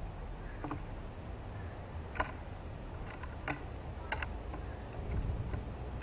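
Sharp, scattered taps of painted buntings' bills pecking seed off a wooden feeding board, about six over a few seconds, over a low steady rumble.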